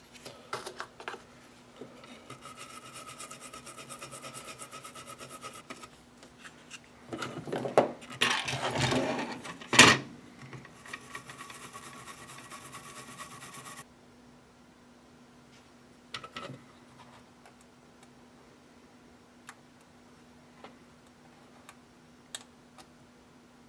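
Scrubbing and rubbing on the solder side of a circuit board, in long stretches of fast scratchy strokes, with a louder rough stretch and a sharp knock about ten seconds in. After about fourteen seconds it stops, leaving only a few small clicks from handling the board.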